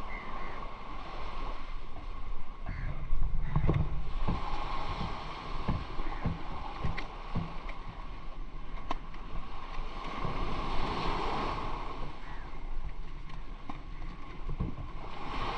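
A nylon cast net being shaken out by hand, with scattered soft thumps and rustles as small fish drop and flap, over a steady rush of wind and surf. The thumps are busiest in the first half.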